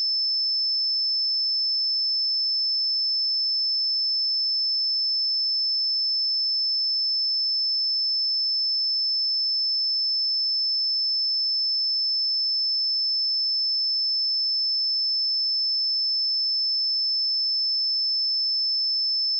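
Pure 5266 Hz sine-wave test tone: a single high-pitched steady tone held at constant level.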